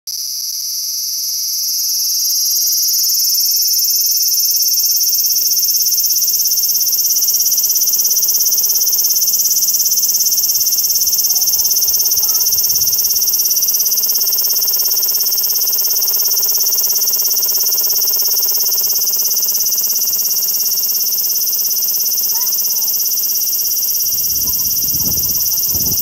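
Cicada singing one continuous loud buzz that swells over the first couple of seconds and then holds steady. Some low rumbling noise comes in near the end.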